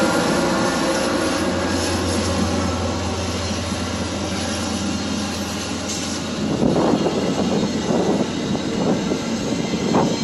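Via Rail passenger train passing close by: a steady low drone for the first six seconds or so, then a louder, rougher rumble of the cars rolling over the rails from about six and a half seconds in.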